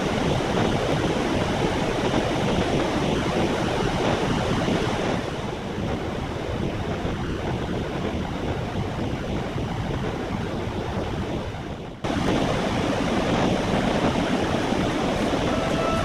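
Khone Phapheng waterfall on the Mekong: heavy water pouring over rocks as a steady, dense rushing noise. It dips briefly about twelve seconds in and picks up again at once.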